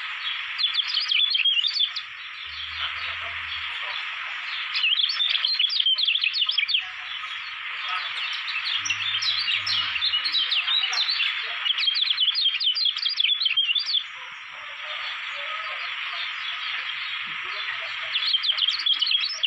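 A caged white-eye (kecial kuning) singing in bursts of rapid, high twittering, the longest lasting about six seconds in the middle, over a steady background hiss. This is lively, sustained singing of the kind bred and trained for songbird contests.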